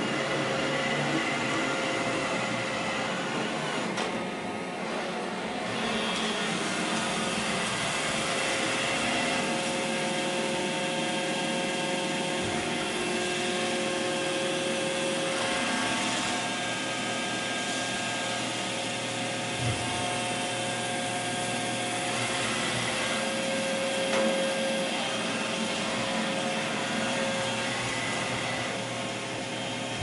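iRobot Roomba i3 robot vacuum running on a hard wooden floor: a steady whirring of its suction motor and brushes with a constant whine in it. There are a couple of brief knocks about two-thirds of the way through.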